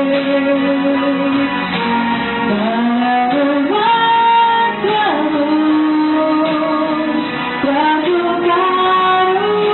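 A woman singing a Portuguese-language worship song into a microphone, holding long notes and gliding between them, with instrumental accompaniment.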